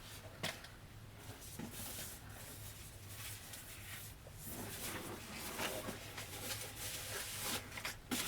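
Faint handling noises: scattered rustling and soft taps of cardboard and plastic packaging being turned over and handled.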